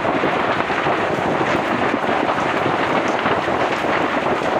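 A large field fire burning through felled brush and bamboo in a slash-and-burn clearing: a steady, loud crackle of flames thick with quick small pops.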